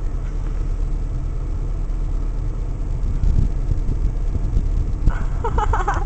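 Steady low rumble of a car's running engine and its air conditioner blowing through the dashboard vents, heard from inside the cabin.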